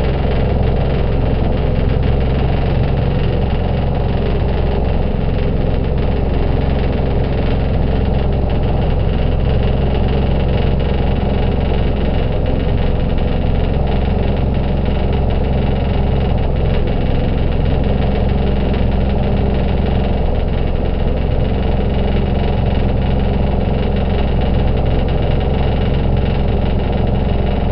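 Ocqueteau motor boat's engine running steadily under way, a loud, even low drone with a rushing noise above it.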